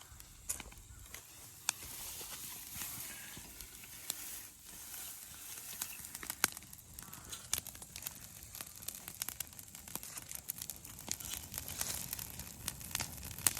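A pile of dried cut weeds and grass burning, crackling with irregular sharp pops over a steady hiss.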